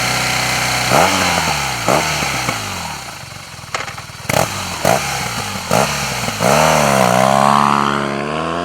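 BMW R 1200 GS air-cooled boxer twin running through an aftermarket exhaust, revved on the stand for a sound test. It holds steady revs, then takes several quick throttle blips with a couple of sharp cracks between them, then a longer rev held high that eases back down near the end.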